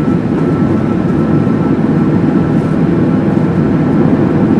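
Steady road and wind noise inside a car cabin while driving on a highway, with a faint steady high whine.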